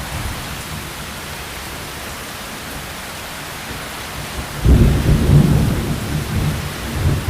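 Heavy rain falling in a steady hiss. A little past halfway a rumble of thunder breaks in suddenly and rolls on, fading unevenly toward the end.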